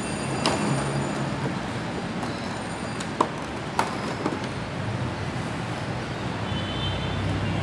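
Clear plastic blister tray being handled and set down on a table: a few sharp plastic clicks and knocks, the loudest about three and four seconds in, over a steady background hiss.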